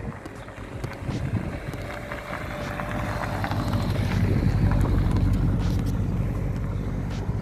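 A car's engine and exhaust grow louder from about a second in as it drives out past, loudest a little past the middle, then begin to fade.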